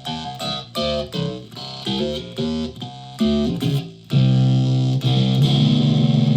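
Flight Centurion solid-body electric ukulele played through a home-built clone of the Dwarfcraft Hax pedal: a run of single picked notes, then a chord struck about four seconds in and left ringing.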